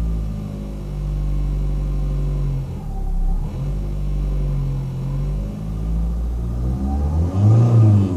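Ford Fiesta Mk7 engine running with a steady pitched hum, revved briefly near the end so the pitch rises and falls. This is the strange noise whose cause the owner does not know.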